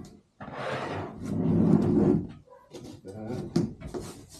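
The heavy metal base of a 3D printer slides across a tabletop, making a scraping rub that lasts about two seconds. A few light knocks follow as it is handled.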